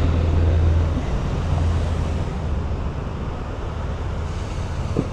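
A vehicle's engine running with a low, steady hum while driving along a street, under a steady rush of road and wind noise; the hum eases after about two seconds.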